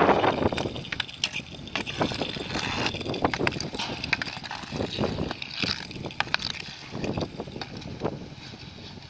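Inline skate wheels rolling and scraping on asphalt, with irregular sharp clacks of a hockey stick blade knocking a puck back and forth during stickhandling.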